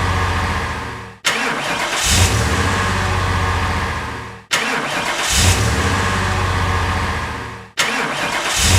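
Car engine starting: a short crank, then it catches and runs at a steady idle. The same few-second clip repeats, cutting off abruptly and restarting three times.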